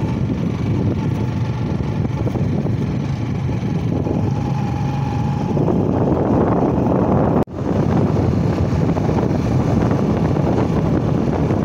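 Motor vehicle running at road speed, with wind rushing over the microphone. The sound drops out for a moment about halfway through.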